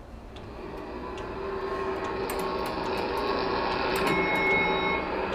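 Themed pump-control panel sound effect: a machine hum building up over the first few seconds as the pump comes to 'ready', with scattered clicks and a brief high tone about four seconds in.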